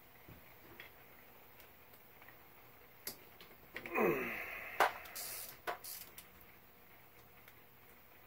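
Metal clicks and scrapes of a screwdriver and security Torx bit on a diesel injection pump housing while a tight screw is worked. About four seconds in there is a short creaking squeal that falls in pitch, followed by a few sharp clicks.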